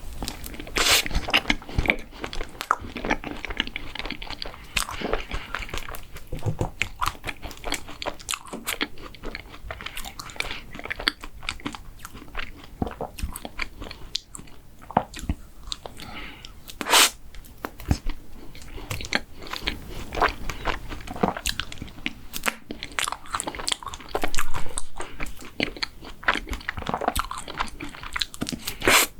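Close-miked eating sounds: a person biting and chewing crunchy mint-chocolate desserts, with dense irregular crunching and mouth clicks, a sharp loud crunch about 17 seconds in, and a louder burst of chewing around 24 seconds.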